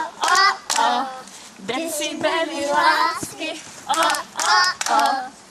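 A woman and children singing a clapping-game song together, their voices in short phrases, with a few hand claps among them.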